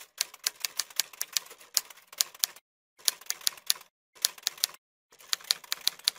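Typewriter keys clacking as a sound effect. The keystrokes come in four quick runs with short pauses between them.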